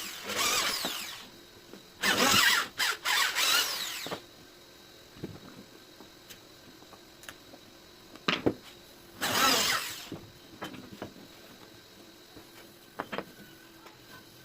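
Power drill running in short trigger bursts, its motor pitch wavering and stuttering as the trigger is eased on and off, with a few sharp clicks between the bursts.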